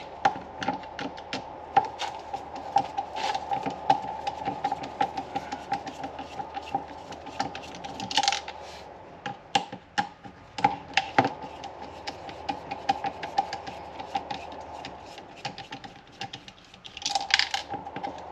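Light, rapid clicks and taps of a Torx screwdriver and small plastic parts as T10 screws are backed out of a steering angle sensor housing. A couple of brief scraping rustles come about halfway through and near the end.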